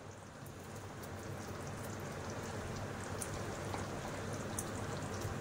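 Thick curry gravy cooking in a kadhai on the stove: a steady low hiss with a few faint scattered pops.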